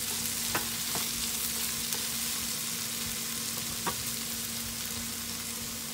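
Diced potatoes and green beans sizzling in oil in a frying pan, with a wooden spatula stirring through them and a few light knocks.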